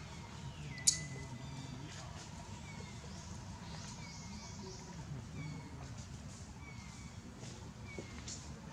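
An animal's short high-pitched calls, each falling in pitch, repeated about once a second, the first one longer and held. A single sharp click comes about a second in.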